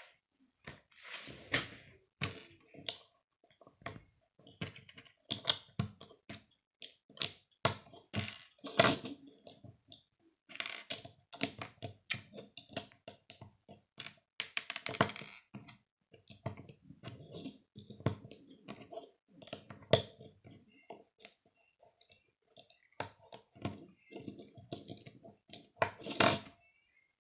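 Lego bricks clicking as they are pressed together and picked up and set down on a wooden tabletop: irregular sharp clicks and light taps.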